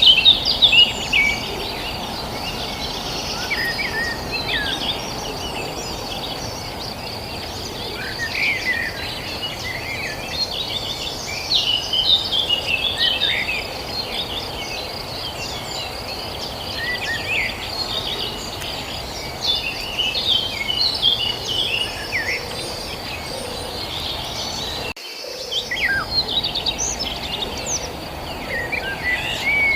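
A chorus of birds chirping and calling in many short, quick notes over a steady high insect trill and a low even background hiss. The sound drops out for a moment near the end.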